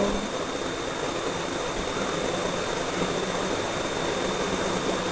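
Steady rushing background noise with a faint, thin, high steady tone running through it; no distinct event stands out.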